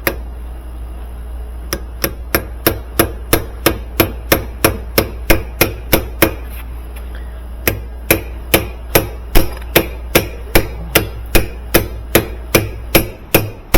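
Hammer tapping a new motor coupling onto the transmission shaft of a direct-drive Whirlpool washer, driving it on until it sits flush with the shaft. Quick, even taps at about three a second in two long runs, with a brief pause between them.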